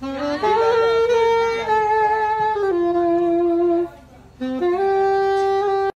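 Background music: a melody played in a few long held notes, breaking off for about half a second roughly four seconds in and cut off abruptly at the end.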